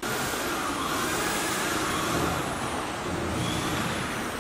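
Hitec HTJ1325M mixed CO2 laser cutting machine running. It makes a steady rushing noise, with a high whine that glides up and down in pitch several times. The sound starts abruptly.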